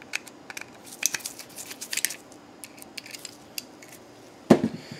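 Small Phillips screwdriver clicking and scraping as it works tiny screws out of a plastic security-camera housing, a scatter of short dry clicks, with a louder knock near the end.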